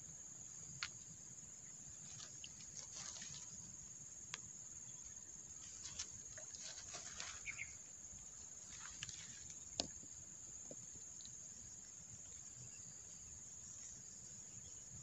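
Faint outdoor ambience dominated by a steady, high-pitched drone of insects, with a few scattered faint clicks and rustles.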